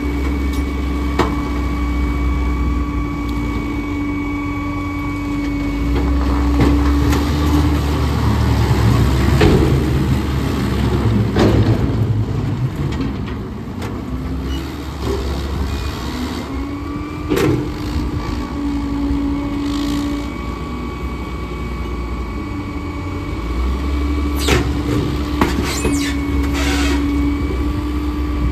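Diesel engines of a loader and a rear-loading garbage truck running, with a steady whine and an engine rumble that swells twice as the loader lifts and tips its bucket. Scattered clanks and knocks of the steel bucket and debris at the truck's hopper.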